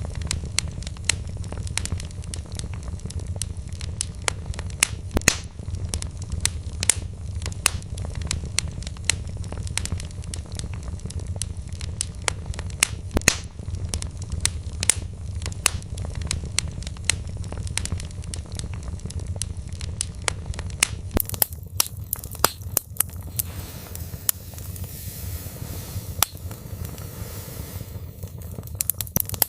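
Wood log fire in a fireplace crackling, with frequent irregular sharp pops over a steady low rumble of the flames. About two-thirds of the way through, a faint hiss joins in.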